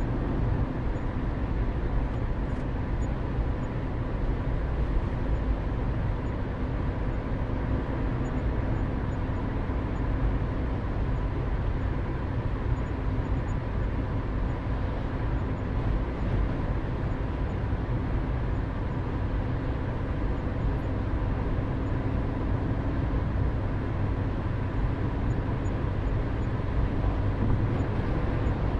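Steady interior road noise of a moving car: a low rumble of engine and tyres heard from inside the cabin, with a faint steady hum over it.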